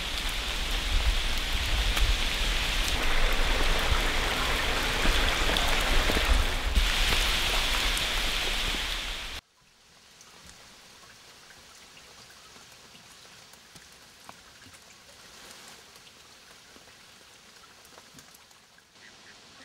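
Steady rush of water with a fine patter, which cuts off suddenly about nine seconds in, leaving only a faint, even hiss.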